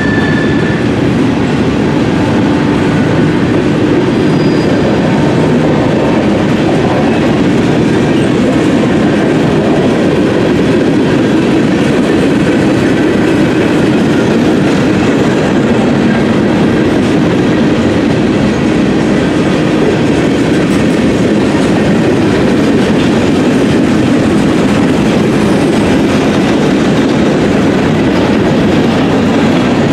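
A freight train's cars rolling past close by: a loud, steady rumble of steel wheels on rail as covered hoppers, boxcars and gondolas go by.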